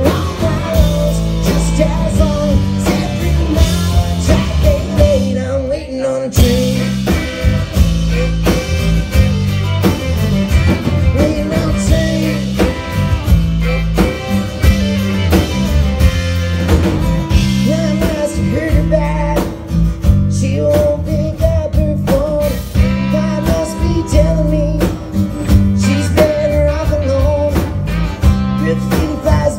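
Live alt-country rock band playing: electric and acoustic guitars, bowed fiddle and drums, with a lead vocal. The band drops out briefly about six seconds in, then comes back in.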